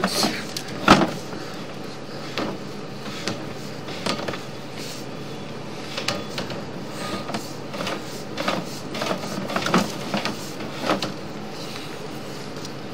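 Sewer inspection camera's push cable being pulled back through the pipe: irregular knocks and clicks over a steady hiss, the loudest knock about a second in.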